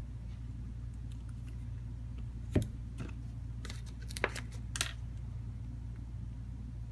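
Steady low hum with a few light clicks and taps from a phone and a glue tube being handled on a plastic work mat, the sharpest about two and a half seconds in and a small cluster a little before five seconds.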